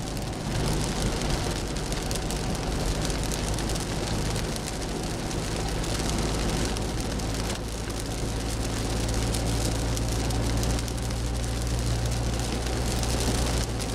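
Rain falling on a car's windshield and roof, with tyres hissing on the wet highway and a steady low road drone, heard from inside the cabin.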